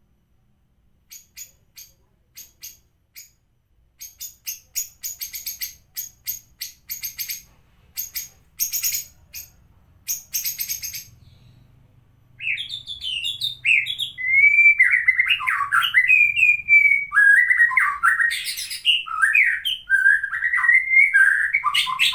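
White-rumped shama (murai batu) giving a run of short, sharp chip calls that come faster and faster, then about halfway breaking into loud, varied whistled song. The bird has recovered from a cough, cold and hoarseness and is singing again.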